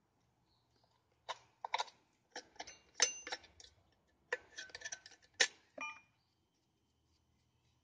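A run of sharp metallic clinks and knocks, a few ringing briefly, from chainsaw parts and tools being handled during cleaning. They come in three clusters and stop about six seconds in.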